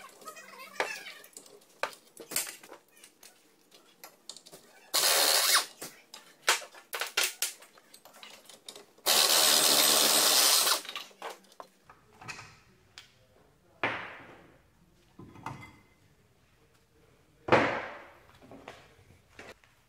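Pneumatic impact wrench undoing the rear caliper bracket bolts on a VW Transporter T5. It runs in two bursts, a short one about five seconds in and a longer one of nearly two seconds around ten seconds in, after light ratchet clicking. Two sharp metal clanks follow near the end as the bracket comes off.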